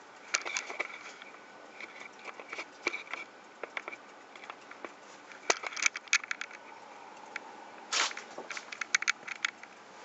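Irregular clicks, crackles and rubbing from a handheld camera being moved around, with a sharp cluster of clicks about eight seconds in, over a faint steady background.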